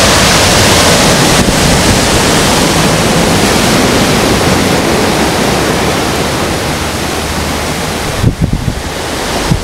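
Ocean surf breaking and washing over a rocky shore in a loud, continuous rush, with wind buffeting the microphone.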